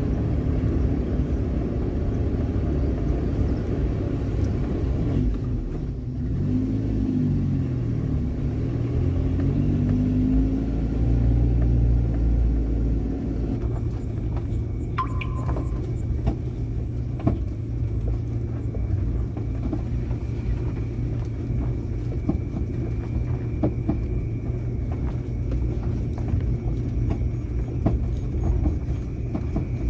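Car driving, with a steady engine and road rumble; the engine pitch rises and falls between about 6 and 13 seconds in, then holds steady.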